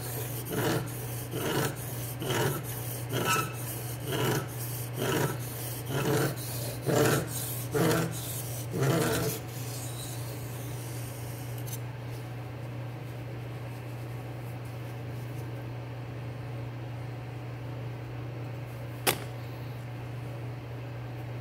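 D2 steel knife blade, held in a DMT Aligner clamp guide, stroked across a bench stone with light pressure: about one rasping stroke a second, stopping about nine seconds in. After that only a steady low hum remains, with a single sharp click near the end.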